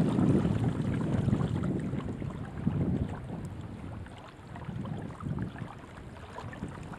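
Wind buffeting the microphone in gusts, loudest at the start and easing off about halfway through.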